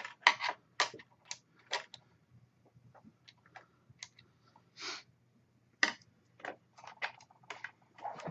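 Irregular small clicks and taps of metal screen brackets and tiny screws being handled and fitted to a laptop LCD panel, with a brief rustle about five seconds in.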